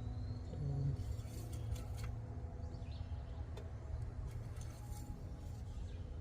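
Birds chirping over a steady low rumble of outdoor background, with a few short clicks and rustles of handling.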